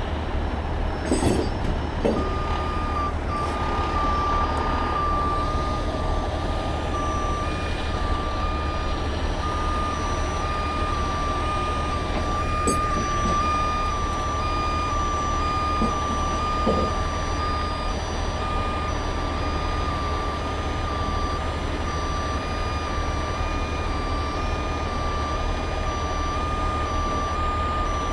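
Heavy truck's back-up alarm beeping steadily, starting about two seconds in, over a diesel truck engine running. A few short metallic clinks near the start and in the middle.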